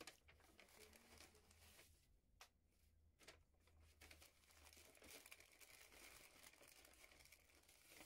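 Faint crinkling and rustling of packaging being handled, with scattered light clicks and taps.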